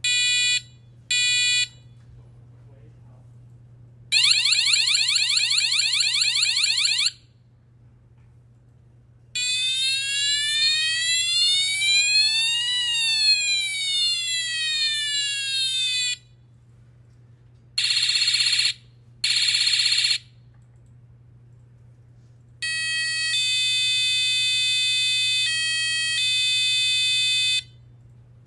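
Buzzer of the DM-45F2022 sound effect module playing a series of its built-in electronic alarm effects, each separated by a short pause as the effect is switched. First come two short beeps, then a rapid chirping of rising sweeps, then a siren that slowly rises and falls once. Two short bursts follow, and the series ends with a long steady electronic tone.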